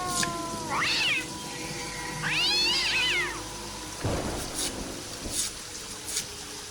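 Meow-like animal cries: a short rising-and-falling one about a second in, then a longer arched one. A dull thump follows about four seconds in.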